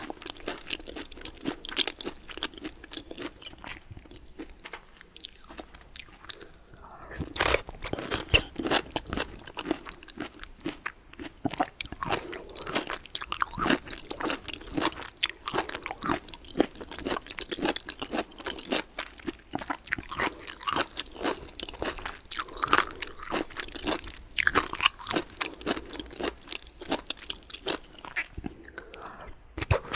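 A person eating close to the microphone: many crunchy bites and wet chewing, with rapid irregular clicks throughout.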